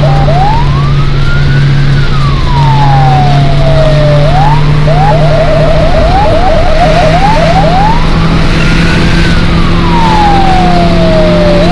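Fire truck's electronic siren sounding in wail mode with one slow rise and fall, then switching to a fast yelp of short rising chirps, about three a second, for a few seconds, then back to a slow wail. Underneath runs the steady drone of the vehicle's engine, heard from inside the moving vehicle.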